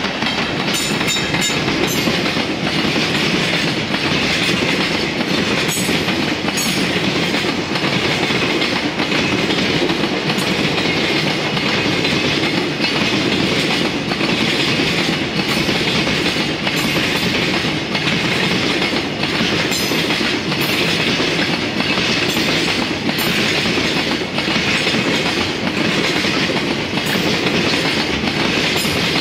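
Long container freight train passing: a steady rumble of steel wheels on rail, with repeated clickety-clack as the wagons' wheels cross rail joints.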